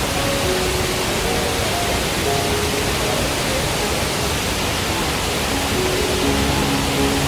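Steady, even rush of a wide curtain-type waterfall, Shifen Waterfall. Faint background music notes sound over it.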